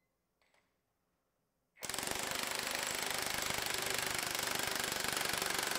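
Milwaukee 2868-20 1-inch cordless impact wrench hammering continuously under load on a torque dyno, driving through a 1-inch to 1/2-inch step-down adapter; the rapid blows start abruptly about two seconds in. Through the adapter the run reaches about 587 ft-lbs, roughly a third less than the bare gun.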